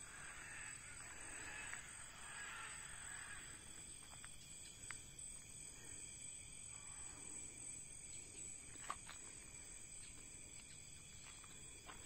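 Faint Amazon rainforest ambience at dusk: a steady, high-pitched chorus of insects droning, with two brief faint ticks partway through.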